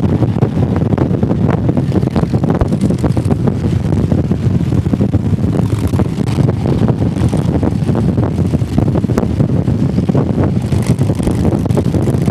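Motorcycle riding at steady speed: the engine runs under loud, steady wind noise buffeting the microphone.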